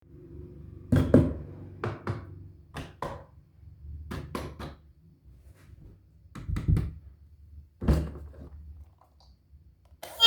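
Irregular knocks and thuds of objects being handled, coming in small clusters of two or three, over a faint low hum.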